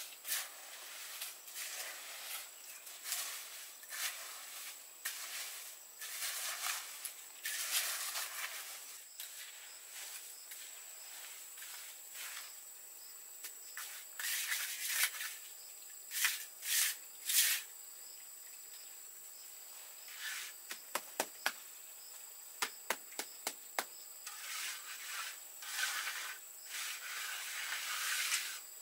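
A trowel scraping and smoothing a bed of wet concrete mix in short, irregular raspy strokes, with a run of sharp little taps about twenty seconds in. A steady high insect whine runs underneath.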